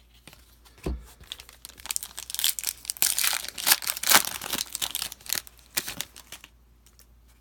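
A trading card pack's wrapper crinkling and tearing as it is opened: one soft thump about a second in, then a dense run of crackles from about two seconds in that stops shortly before the end.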